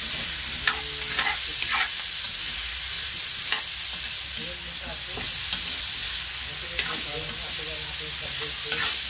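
Cubes of cow skin frying with garlic and onion in a steel wok, a steady sizzle, while a metal spatula stirs them, scraping and clinking against the pan several times.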